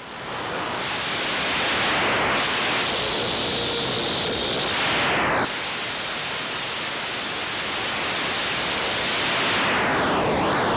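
Raw XOR noise output of a Hexinverter Jupiter Storm cosmic noise oscillator, a dense hiss whose tone sweeps as its oscillator pitch knobs are turned by hand. There are falling sweeps near the start and near the end, and a sudden shift in tone about halfway through. At high pitch settings it sounds quite different from an ordinary LFSR noise generator.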